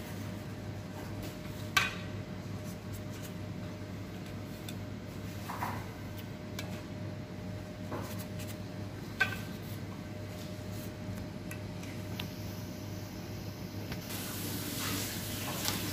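A low steady hum with a few light knocks and clinks against a glass salad bowl, about four in all and the sharpest near the start and the middle, as a plastic-gloved hand adds chopped herbs and garlic. A faint hiss comes in near the end.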